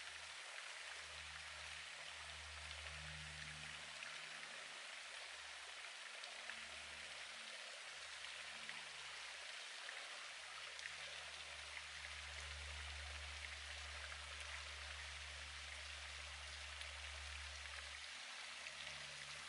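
Faint steady watery hiss, with a low hum underneath.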